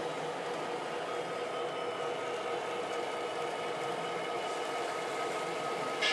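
Model trains running on a layout: a steady whir of small electric locomotive motors and wheels on the track, with a constant hum.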